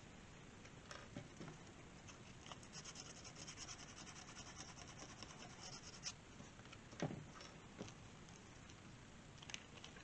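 Faint scratching and rubbing from hand work on the air rifle's stock, with a few light knocks or clicks, the clearest about seven seconds in.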